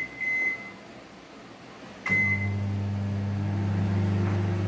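Microwave oven being set and started: a few short keypad beeps, then about two seconds in a click and a single beep as it starts, followed by the steady low hum of the oven running.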